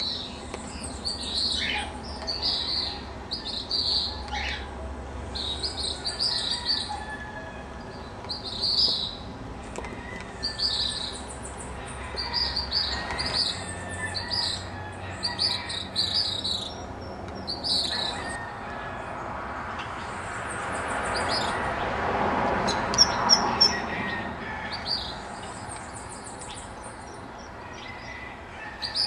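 Gray kingbirds (pitirres) calling, short chattering calls repeated about once a second. About two-thirds of the way through, a rush of noise swells and fades, with a few sharp knocks at its loudest point.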